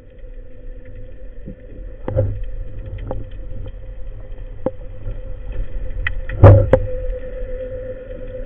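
Underwater recording during a spearfishing dive: a steady hum with a low rumble, broken by a few sharp clicks or knocks, the loudest about six and a half seconds in.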